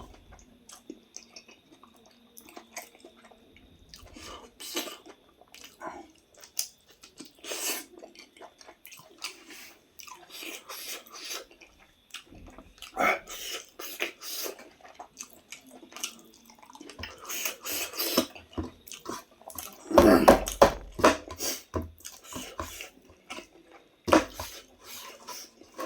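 Close-up chewing and wet mouth sounds of someone eating: irregular crunches, clicks and smacks, with one louder, longer burst about three quarters of the way through.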